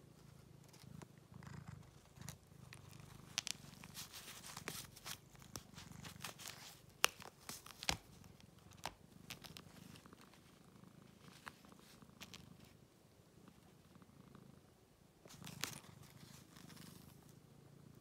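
Domestic cat purring faintly and steadily, with scattered sharp clicks, most of them in the middle and a short cluster near the end.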